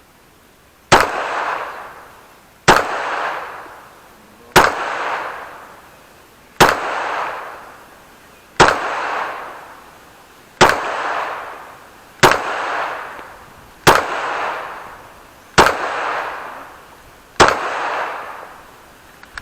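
Glock 17 9 mm pistol firing ten single, deliberately paced shots about two seconds apart. Each shot is followed by a long echo that fades out before the next.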